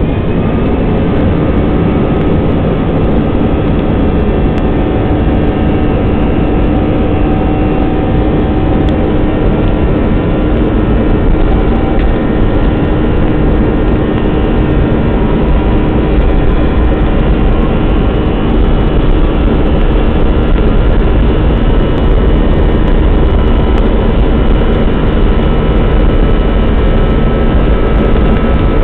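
Airbus A320's turbofan engines at takeoff thrust, heard inside the cabin over the wing: a steady high whine over a loud, dense rumble as the airliner rolls down the runway. The engines' rising pitch levels off at full power within the first second.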